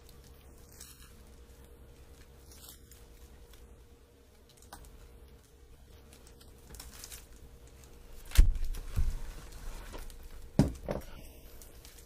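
A 9-speed bicycle chain being handled while its master link is fitted: faint metallic fiddling, then a few sharp metal clicks about eight and a half, nine and ten and a half seconds in.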